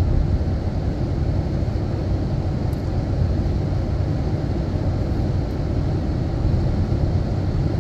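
Steady low road and engine rumble of a Ram 1500 Classic Warlock pickup cruising at highway speed, heard from inside the cab.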